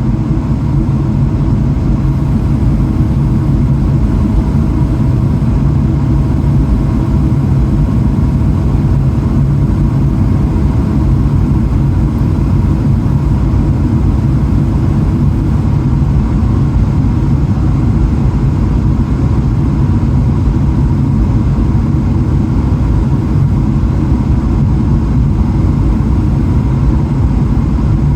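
Steady, loud cabin rumble of a Boeing 777-300ER in flight, with its GE90 engines and the airflow making a dense low roar and a faint steady hum above it.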